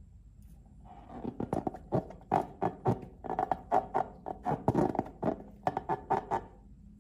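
Slime being squeezed and worked by hand, giving a quick irregular run of sticky clicks and pops, about four or five a second, starting about a second in and stopping shortly before the end.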